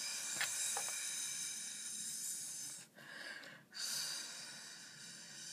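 A person hissing through the mouth, a mouth-made sound effect for the toy firework's fuse or rocket. The hiss stops about three seconds in, comes back for a moment, then starts again.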